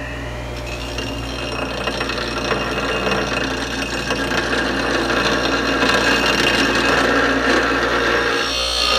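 Bench grinder running with a steady motor hum while a steel cleaver blade held in a clamp is pressed to the grinding wheel, a gritty grinding that grows louder over the first several seconds.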